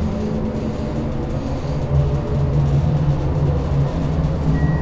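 Schindler hydraulic elevator car travelling, with a steady low hum from its drive. A short high beep sounds near the end as the car reaches its floor.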